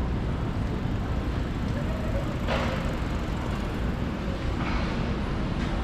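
Busy city street ambience: a steady low rumble of traffic, with brief swells of noise about two and a half and four and a half seconds in.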